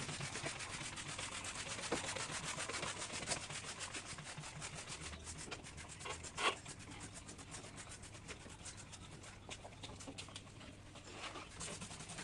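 Scrubbing a kitchen surface by hand with quick back-and-forth strokes, easing off in the second half, with a single sharper knock about halfway through.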